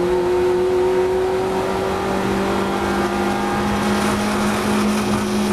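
The Compact race car running at speed, with a steady droning whine whose pitch sinks slowly and then holds. This is likely the strange noise the car makes in the race.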